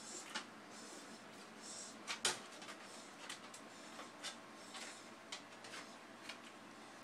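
A puppy's paws and claws tapping and scuffing on stair steps as it tries to climb down: faint, irregular clicks with one sharper knock about two seconds in.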